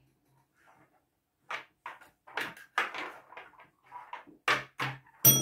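Plastic stacking cups clattering and knocking on a tabletop as they are quickly arranged, a rapid run of short knocks. Near the end a tap bell is struck once and rings on.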